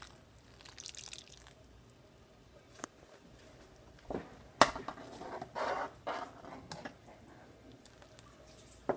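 Hot milk sloshing in a metal pot as white vinegar is poured in and stirred with a metal ladle to curdle it, in a few short bursts of liquid noise. There are sharp clinks of the ladle against the pot, the loudest about halfway through.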